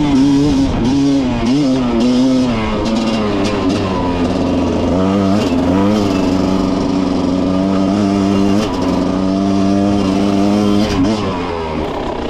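Two-stroke enduro motorcycle engine under riding load, the pitch rising and falling with the throttle and gear changes over the first few seconds, then holding steady, and easing off near the end.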